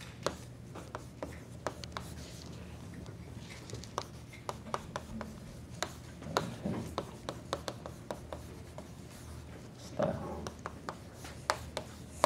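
Chalk writing on a chalkboard: a run of sharp taps and short scratchy strokes as letters are written out by hand.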